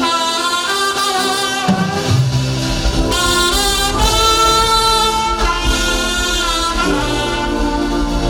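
Instrumental music led by saxophone and brass, playing held melodic notes over a bass line that comes in about two seconds in.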